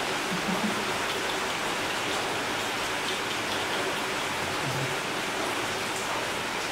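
Steady, even rushing noise, like rain or air noise, with no distinct events.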